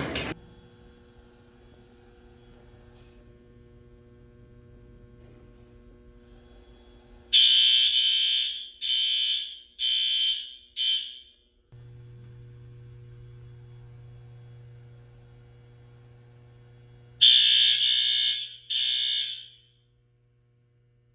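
Fire alarm horns sounding in short, loud, high-pitched blasts: a run of four about 7 seconds in, then two more about 17 seconds in. A low steady hum carries on between the runs.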